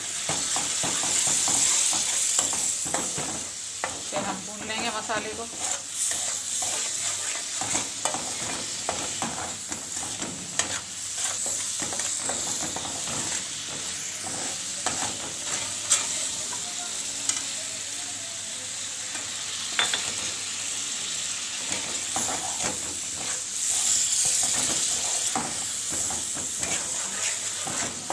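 Spice masala sizzling as it fries in oil in a metal karahi, stirred continuously with a perforated metal spoon that scrapes and clicks against the pan. The sizzle is louder about a second in and again near the end.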